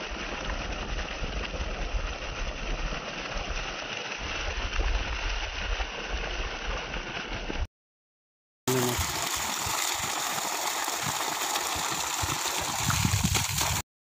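Water gushing out of a pipe onto grass, a steady rushing splash with hands playing in the stream. It drops out for about a second near the middle, then carries on.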